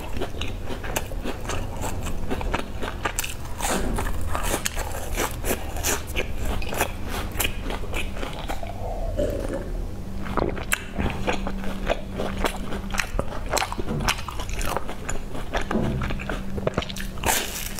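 Close-miked biting and chewing of soft round pastries with a sesame crust, a dense run of small crunchy, wet mouth sounds. About halfway through the chewing gives way briefly to swallows from a glass of milky drink. A faint steady hum lies underneath.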